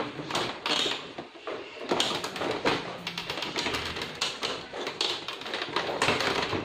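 Irregular plastic clicks and knocks from the scanner housing of an HP 2515 inkjet printer being pried up by hand as its latches give.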